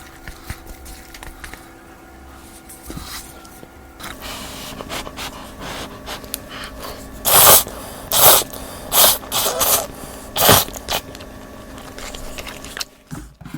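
Close-miked eating of Buldak spicy ramen: soft chewing and mouth clicks, then about halfway through a run of about five loud, short slurps.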